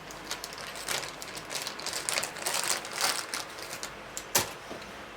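Rustling and clicking from a new glue stick being fetched and handled, with crinkly handling noises and one sharp click about four seconds in.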